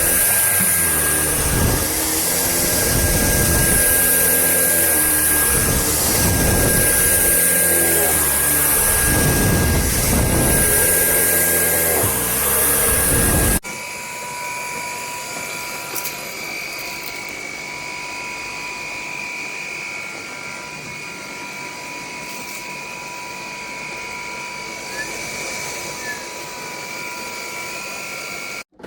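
Dreame Z30 cordless stick vacuum running: loud with a strong hiss, then after an abrupt cut about halfway through, a quieter steady motor whine.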